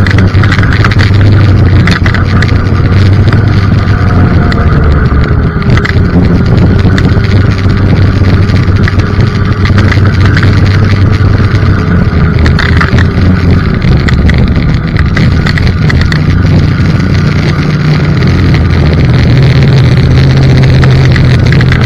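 Snowmobile engine running at trail speed, heard from the rider's seat with wind on the microphone. The engine note shifts about two-thirds of the way through as the sled slows.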